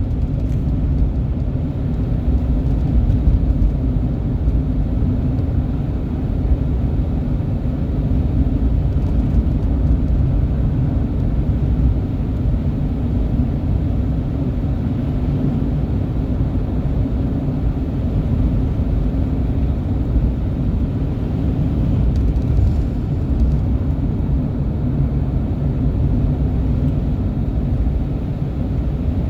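Steady low rumble that holds its level throughout, with no clear rhythm or pitch.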